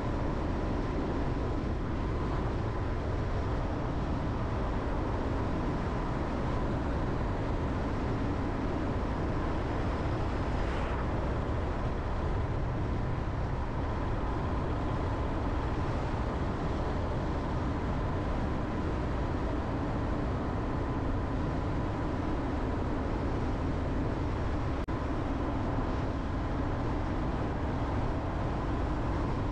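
Steady engine and road noise from a Jeep Renegade driving along a road, with a faint steady whine above the rumble.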